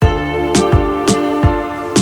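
Background music: sustained chords over a steady drum beat, with a kick and a sharp snare-like hit about every half second.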